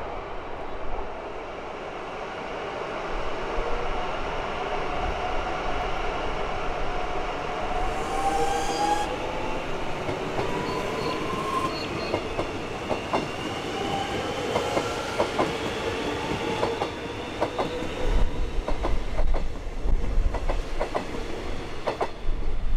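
A High Capacity Metro Train, a seven-car electric multiple unit, passing. A whine climbs in pitch as it comes on, then its wheels click irregularly over the rail joints and pointwork.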